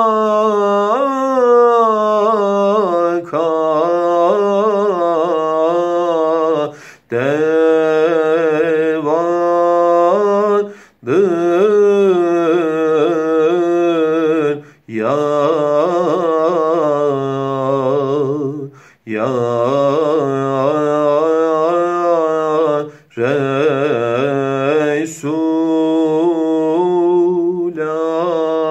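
A solo, unaccompanied male voice singing a tevşih in the Çargâh makam: long, richly ornamented melismatic phrases, each cut off by a short breath about every four seconds.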